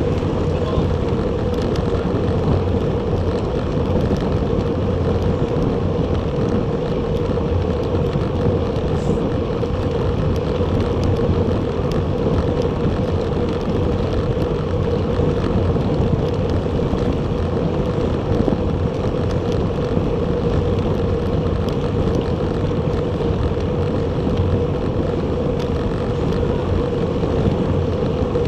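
Steady riding noise from a Bacchetta Corsa recumbent bicycle at speed: wind rushing over the action camera's microphone, with a constant hum from the moving bike.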